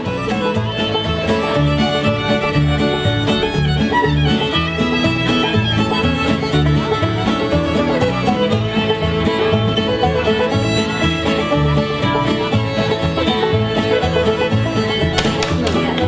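Background music: an upbeat bluegrass-style tune with fiddle, banjo and guitar over a steady bass rhythm.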